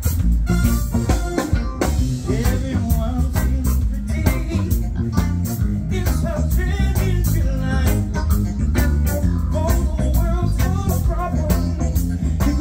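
Live band playing a song with a steady beat on drum kit, electric guitar, bass and keyboard.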